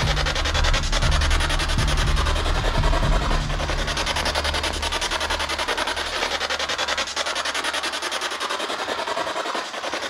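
SB7 spirit box sweeping through radio frequencies: a continuous hiss of static, rapidly chopped by the scan. A low drone underneath fades away in the second half.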